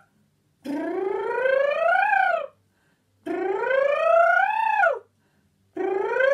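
A woman's voice doing vocal-warm-up sirens: three slides from low to high pitch, each about two seconds long, rising steadily and then dropping off quickly at the top, with short breaks between them.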